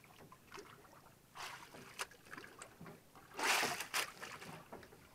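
Sea water slapping and splashing against a small outrigger boat's hull and booms in a few short surges, the loudest about three and a half seconds in, with a light knock about two seconds in.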